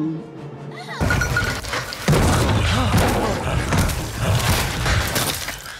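Film soundtrack: a creature's pitched cry trails off, then about a second in a loud, dense action mix of crashes and thuds takes over, with music faintly beneath.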